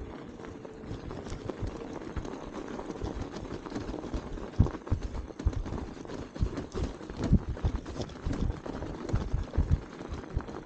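Thron electric funbike riding over a packed snow path: tyres crunching through snow, with irregular low thumps as the bike jolts over bumps. The thumps come more often in the second half.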